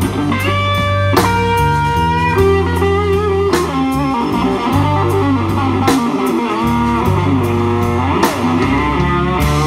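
Live blues band playing an instrumental passage: a Fender Stratocaster electric guitar plays a lead line of held and bent notes over bass guitar and drum kit.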